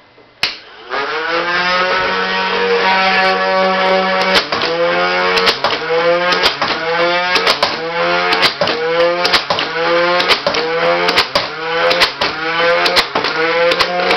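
The flywheel motor of an Air Zone Quickload Power Blaster foam dart gun switches on with a click and spins up to a loud, steady whine. Then about ten darts fire roughly once a second, each a click with a brief drop in the motor's pitch as the flywheel takes the load and recovers.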